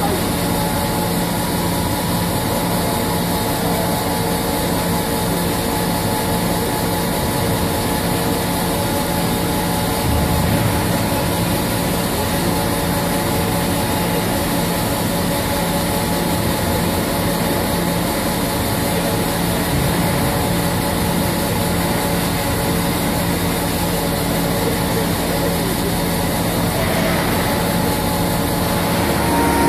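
Drive motors of a row of Finkbeiner HDS 120-tonne semi-scissor lifting platforms running as they raise a heavy ship section: a steady machine hum with several held tones.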